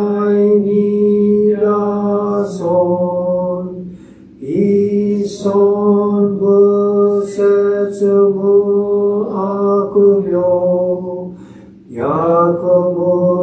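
A Shin Buddhist priest's voice chanting a sutra in long, drawn-out notes held on nearly one pitch, with a short pause for breath about four seconds in and another near the end.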